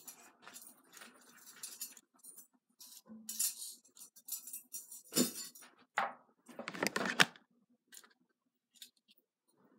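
A thin metal chain necklace with a pendant clinking and jingling as it is handled and pulled over the head, mixed with clothing rustle; scattered clinks, the loudest a little past halfway.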